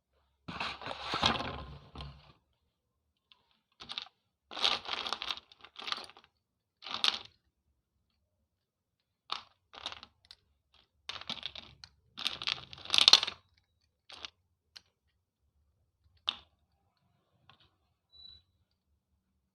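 Slate pencils being bitten and chewed: a run of short, dry crunches and cracks in irregular clusters with silent pauses between them, the loudest about two-thirds of the way through.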